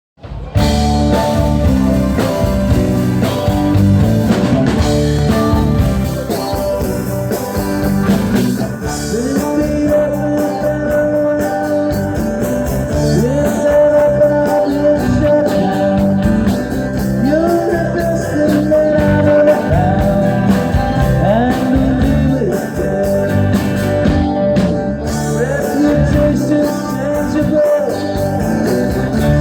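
Live band playing a rock-and-roll song with guitars, drums and singing, starting abruptly about half a second in.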